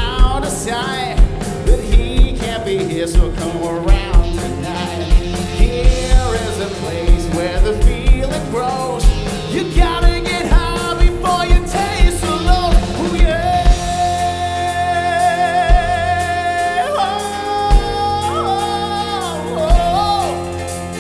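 Live rock band playing a 1990s pop-rock song with a steady kick-drum beat under a lead singer. About two-thirds of the way in, the singer holds one long high note with vibrato, then moves on to shorter phrases near the end.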